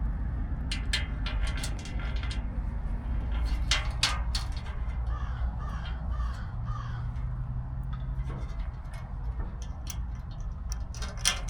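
Sharp clicks and clinks of small hardware being handled as a light is fitted to a truck bumper. In the middle, a bird calls in a quick series of about five harsh notes. A low steady rumble runs underneath.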